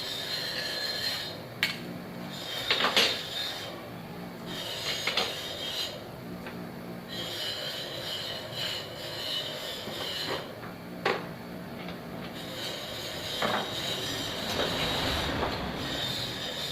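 Metal parts of a car's manual gearbox being worked apart on a bench: stretches of high-pitched metal scraping, a second or two each, with a few sharp knocks in between.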